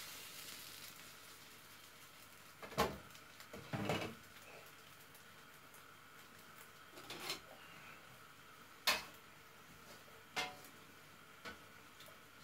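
Cookware and utensils handled at the stove and counter: about half a dozen separate knocks and clatters, the loudest about three seconds in and near nine seconds in.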